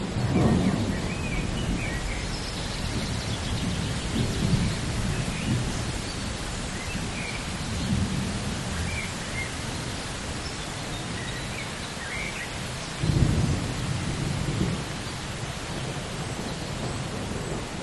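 Steady rain of a thunderstorm, with rolls of thunder rumbling several times, the strongest about thirteen seconds in.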